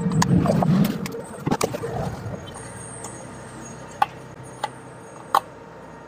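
Handling noise of an electrical plug and cable being pushed into a wall-mounted socket, with a handful of sharp plastic clicks spread over several seconds. A muffled low rumble fills the first second.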